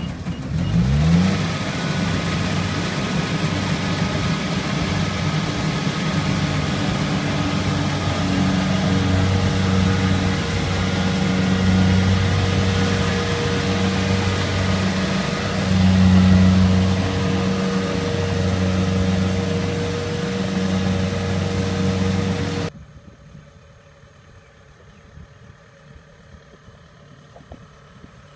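Kubota crawler combine harvester's diesel engine running hard. It revs up with a rising pitch about a second in, and its note swells and eases every second or two under load. About three-quarters of the way through it drops abruptly to a much fainter engine hum.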